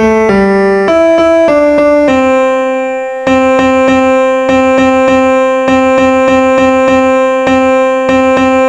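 Background keyboard music: a few short changing notes, then a long held chord over a steady pulse.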